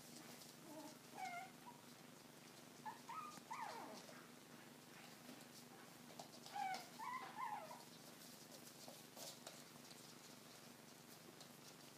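Four-week-old Coton de Tulear puppies giving faint, high little squeaks and yips while they play, in three short bouts: about a second in, around three to four seconds, and again around seven seconds.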